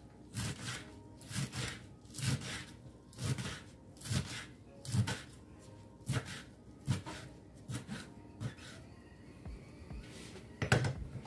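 Chef's knife chopping lettuce on a bamboo cutting board: steady chops, about one to two a second, each a crisp crunch through the leaves and a knock on the wood. The chopping stops about eight and a half seconds in, and a single sharper knock on the board follows near the end.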